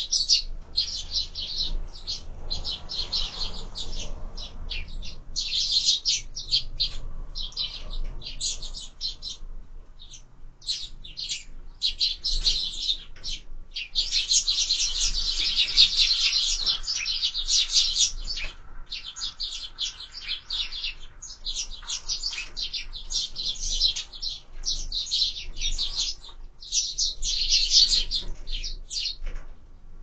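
A flock of sparrows chirping continuously at a window feeder, many short overlapping high chirps with brief lulls, busiest about halfway through.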